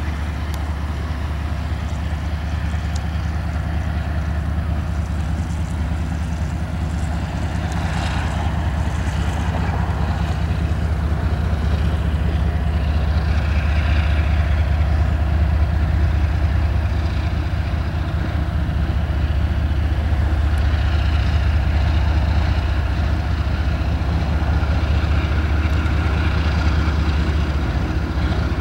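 CSX diesel-electric locomotive passing on the track, its engine making a deep, steady rumble that grows louder over the first half as it draws near.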